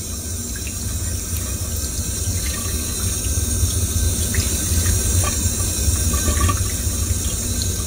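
Tap water running steadily from a sink faucet.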